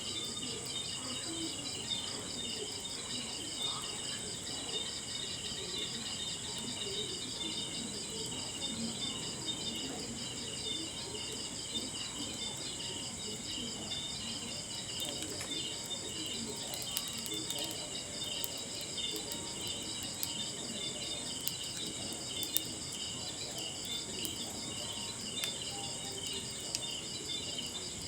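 Crickets chirping in a steady, rapidly pulsing trill over a crackling wood fire. Sharp pops from the burning logs come more often in the second half.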